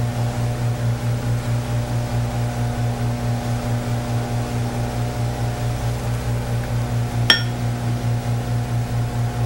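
A steady low hum with a fast, even pulse, and fainter steady tones above it. A single sharp click about seven seconds in.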